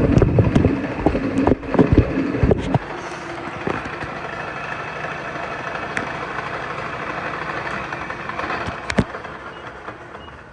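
Metal lathe running with a few clanks, then shutting off about three seconds in. A quieter steady machine hum follows, with a sharp metal clank near the end.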